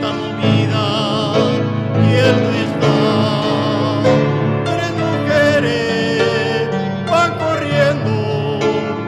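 Music: a slow song with a wavering, vibrato melody line over held accompaniment chords.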